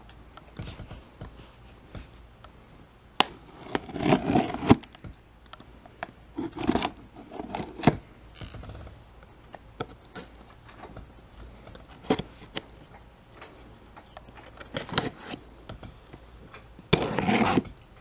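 Cardboard box being handled and opened by hand: irregular scrapes, knocks and rustles of cardboard, loudest about four seconds in and again near the end.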